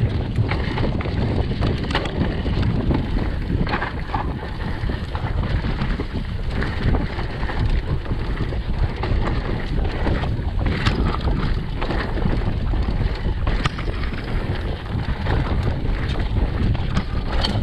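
Mountain bike ridden fast downhill on a dirt trail: a steady rush of wind on the microphone over tyre roar, with scattered clicks and knocks from the bike over rough ground.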